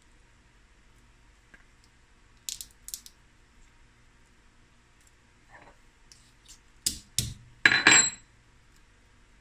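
Boiled crab legs being cracked and broken apart by hand: two sharp shell cracks, a few small ticks, then, near the end, two louder knocks and a short clatter with a brief metallic ring against the steel plate.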